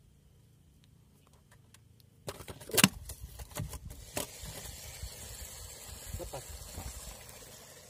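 Near silence, then about two seconds in a sudden run of sharp knocks and clicks with rubbing, which is the camera being handled, settling into a steady hiss.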